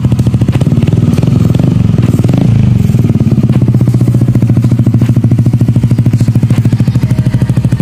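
Yamaha Aerox 155's single-cylinder four-stroke engine idling through an aftermarket exhaust, a steady, evenly pulsing beat.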